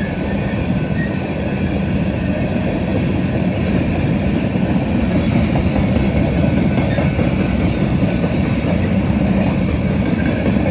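Empty coal hopper cars of a freight train rolling past at a grade crossing, a steady rumble of steel wheels on the rails.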